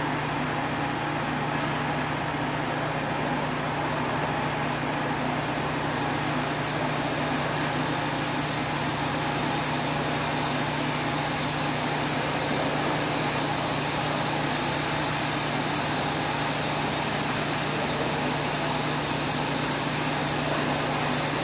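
Steady machinery drone with a constant low hum, joined about six seconds in by a soft, even hiss as the TIG arc burns on the stainless steel pipe joint.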